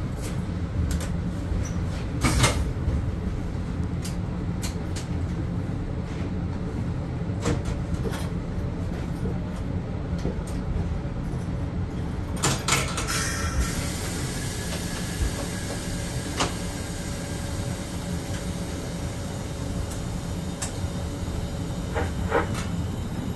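Bombardier BiLevel commuter rail car, heard from inside: a steady low rumble with scattered clunks and knocks. About halfway through, a cluster of sharp clunks is followed by a steady hiss that carries on.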